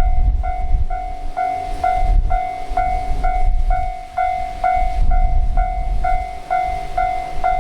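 Japanese level-crossing warning bell ringing its steady 'kan-kan' at a little over two strikes a second. Under it a train runs through the crossing with a low rumble that swells and fades.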